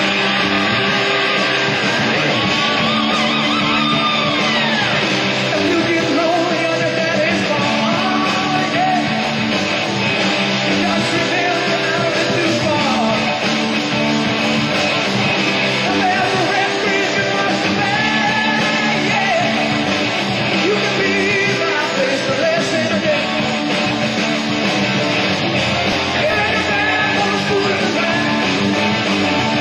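Rock music with a singing voice and electric guitar.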